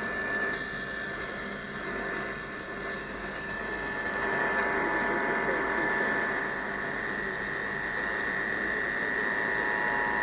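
Emergency Alert System test tones received on AM radio through heavy static, with a steady high interference whistle. About four seconds in, the two-tone EAS attention signal comes up faintly out of the hiss and holds as a steady pair of close tones.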